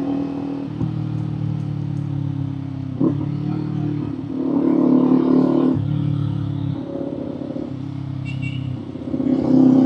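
Kawasaki Z400 parallel-twin engine and exhaust while riding, the engine note stepping up and down in pitch and loudness several times as the throttle is opened and closed, swelling about halfway through and again near the end.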